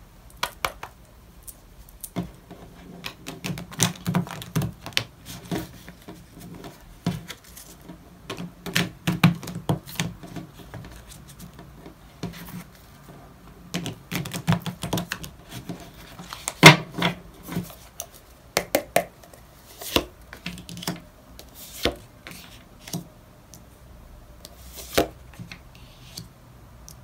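A deck of tarot cards being shuffled by hand: runs of quick clicks, flutters and taps as the cards are split and pushed back together. Toward the end the taps come one at a time, as single cards are laid down on the table.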